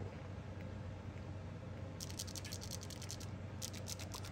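Buttons of a Puffer Crash fidget clicker being pressed in quick succession: two rapid runs of light, crisp clicks, about eight a second, starting about two seconds in and again near the end.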